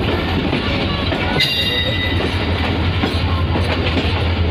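Passenger train coaches running on the track, heard from an open coach doorway: a steady rumble of wheels and wind, with occasional clicks over rail joints. A brief high squeal comes about a second and a half in.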